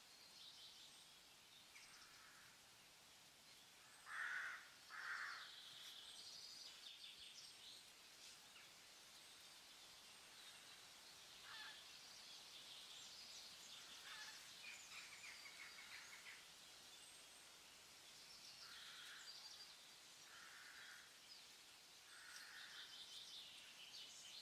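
Faint birds calling and chirping, with scattered short calls throughout. The loudest are two short calls close together about four seconds in.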